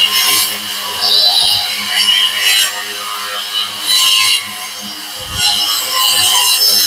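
Boda brushless wall chaser running and cutting a groove into a wall, with repeated surges of harsh grinding noise over a steady high motor whine.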